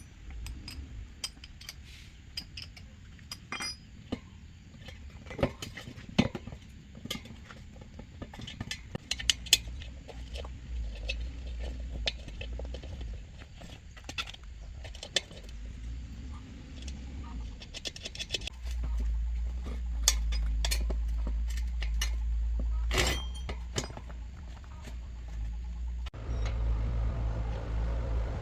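Irregular light metallic clinks and taps of small metal parts being handled, over a low rumble that grows louder about two-thirds of the way in. Near the end the background changes abruptly to a steady low hum.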